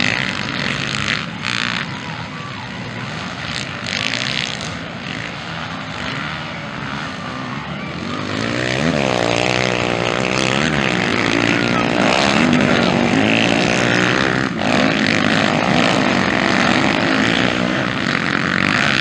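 Several motocross bikes' engines revving as they race past, their pitch climbing and dropping through the gears. From about eight seconds in they grow louder, with more engines rising and falling in pitch over one another.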